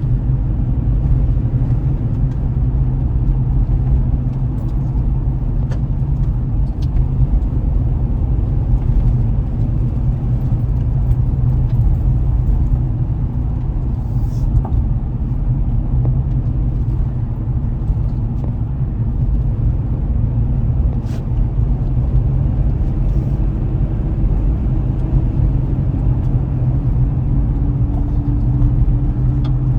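A car driving at a steady speed: a constant low rumble of road and engine noise, with a few faint clicks.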